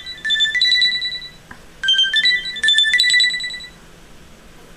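Phone ringtone playing a short electronic melody of stepped, rising beeps. The phrase plays twice, with a pause of under a second between them, and the tone stops near the end.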